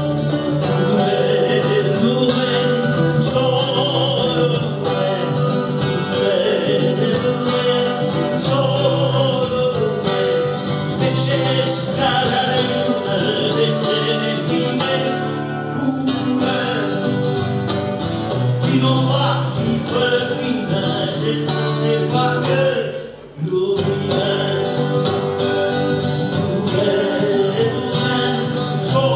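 Acoustic guitar strummed in a song, with a man's singing voice. The music drops out briefly about three-quarters of the way through, then carries on.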